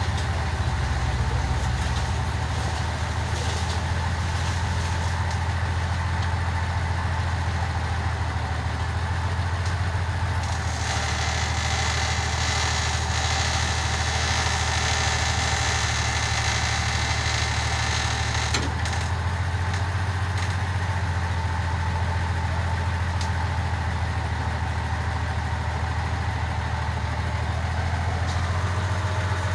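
Crane engine running steadily at a low, even pitch while it holds and lowers a heavy load, with an added hiss from about ten to eighteen seconds in.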